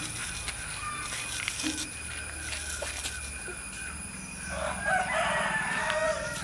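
A rooster crows once, starting about four and a half seconds in and lasting about a second and a half, over a faint steady high whine.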